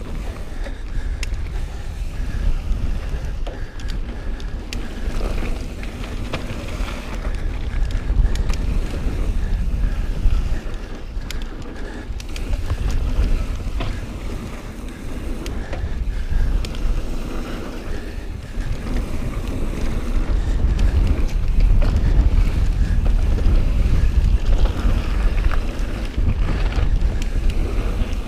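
Mountain bike descending a dirt singletrack: wind buffeting the camera microphone over a rumble of tyres, with frequent small clicks and rattles from the bike, getting louder over the last third as the speed builds.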